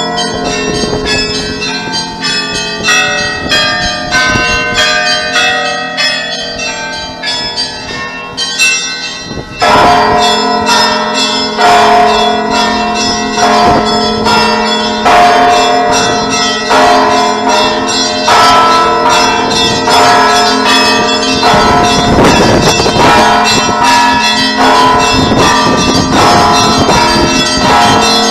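Church bells being rung: many bells of different pitches struck in quick succession over the steady low hum of a large bell. The ringing grows louder and denser about ten seconds in.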